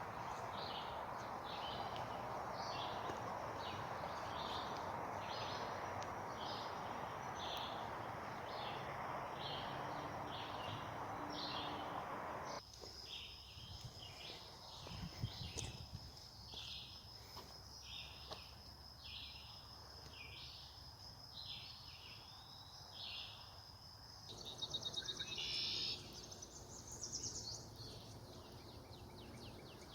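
Songbird repeating a short high chirp about every three quarters of a second, over a steady rushing background that cuts off abruptly about twelve seconds in. After the cut a thin steady high whine runs under the chirps, and a fast high trill sounds briefly near the end.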